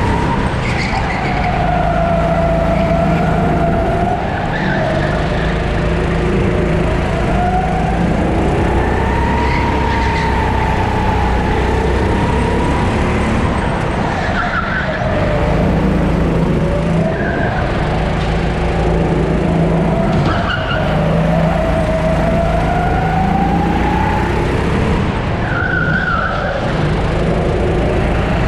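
Sodi 270cc single-cylinder four-stroke go-kart engine, heard onboard, revving up and dropping back again and again as the kart accelerates along the straights and lifts for the corners.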